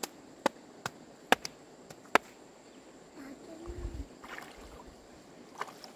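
Stones knocking against stones in shallow stream water: a quick run of sharp clicks, then water sloshing and splashing about halfway through, and one more knock near the end.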